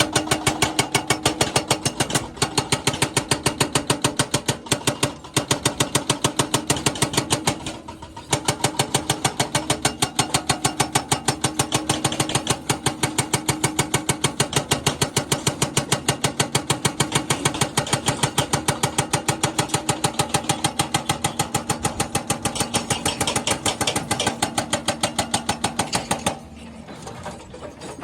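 Jackhammer hammering in a fast, steady stream of blows, with brief breaks twice and a stop about two seconds before the end.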